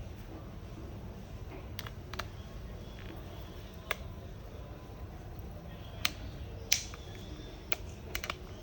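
Sharp plastic clicks, about seven at irregular intervals, as the Samsung Galaxy M30s's plastic back casing is pried open and its clips snap loose, over a low steady background hum.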